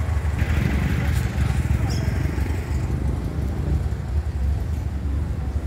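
A vehicle engine idling steadily close by, a continuous low rumble.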